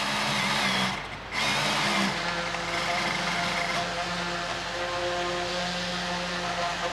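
A motor running steadily at one pitch, with a short break about a second in.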